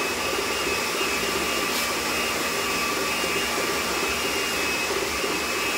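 Electric mixer running steadily, beating egg whites to stiff peaks: an even motor whir with a faint high whine.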